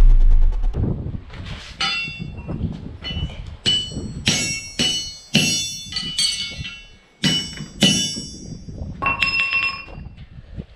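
Hammer blows on a horseshoe against an anvil: about a dozen irregularly spaced strikes, each with a bright metallic ring. A deep rumble fades out in the first second.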